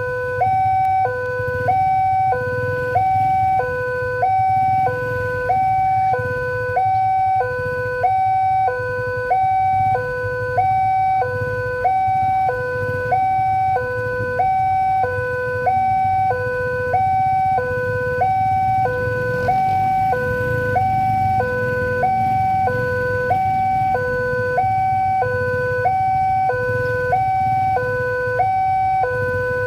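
Railway level-crossing warning alarm sounding: an electronic two-tone signal alternating high and low about once a second, over a steady low rumble.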